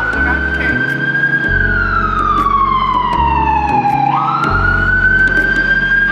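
Emergency vehicle siren wailing in slow cycles: the pitch climbs quickly, holds high, then slides down over a couple of seconds, twice.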